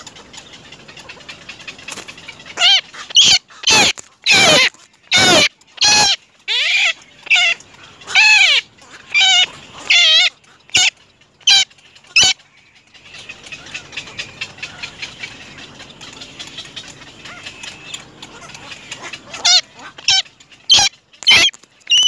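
Black-crowned night heron calling at the nest: a run of short, loud calls, roughly two a second, each bending in pitch. After a lull of several seconds the calls start again near the end.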